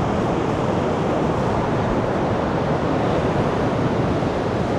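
Ocean surf washing onto the beach, heard as a steady, even rush.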